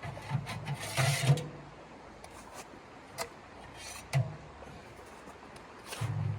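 Irregular handling noises: scattered soft thumps and sharp clicks, with a brief rustle about a second in.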